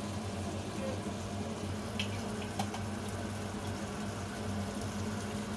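Tomato sauce cooking in a wok, a steady hiss over a low hum, with two light clicks about two seconds in.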